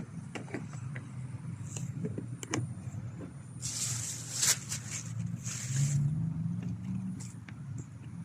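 A motor engine running, its low hum growing stronger after about five seconds, with scattered light clicks and two short bursts of hiss around the middle.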